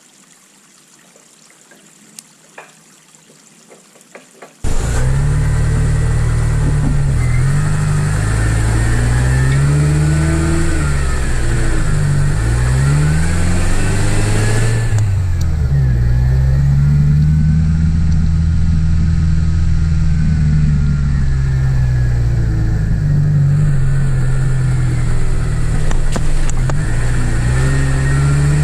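A few faint clicks in quiet, then about five seconds in a vehicle's engine cuts in loud. It runs steadily, its pitch rising and falling as the revs change while it is driven.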